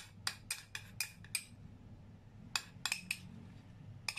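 Metal spoon clinking and scraping against a small ceramic bowl as it is emptied. A quick run of light, ringing clinks in the first second and a half, then a few more between about two and a half and three seconds in.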